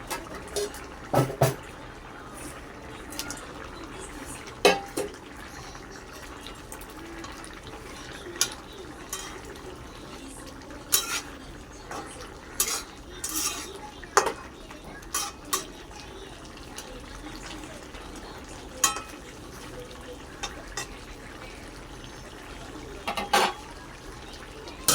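Metal cooking utensil clinking and scraping against a pot while the food is stirred, in scattered sharp knocks every second or two over a steady low background hiss.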